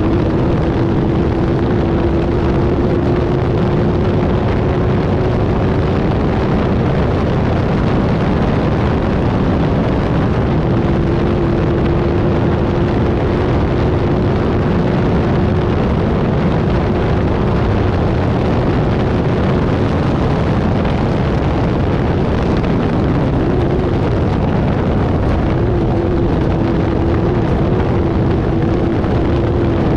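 Off-road race car's engine running at steady revs under a heavy, constant rushing noise. The engine note wavers a little and drops out for a few seconds now and then.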